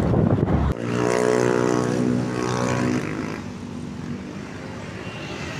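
Loud wind and road rumble cut off abruptly under a second in. A tour bus's multi-tone telolet air horn then sounds a steady chord for about two seconds before dropping away to quieter background noise.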